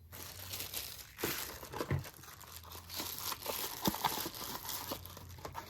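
Packaging crinkling and rustling as it is handled, with small clicks and knocks throughout.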